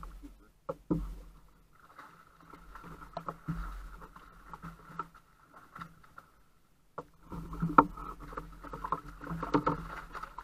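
A hooked California halibut splashing at the surface beside a kayak, with irregular knocks of the landing net and fishing gear against the kayak. The knocks come thicker in the last few seconds as the net scoops the fish.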